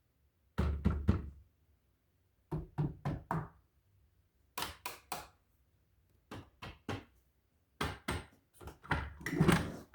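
Knocking on a hard surface in five short groups of several quick raps, with pauses of about a second between groups; the last group near the end is longer and louder.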